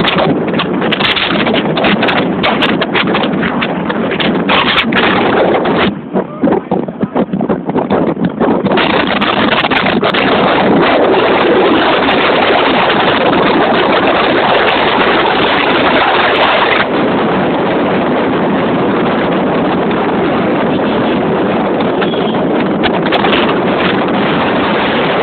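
Loud wind noise buffeting the microphone, breaking up and dropping for a few seconds about six seconds in, then running strong again and easing slightly past the halfway point.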